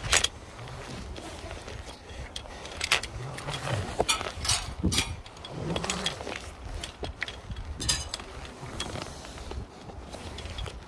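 Metal climbing hardware clicking and knocking against a steel lattice tower as a climber works his way down it, a few sharp clinks scattered over a steady low wind rumble on the microphone.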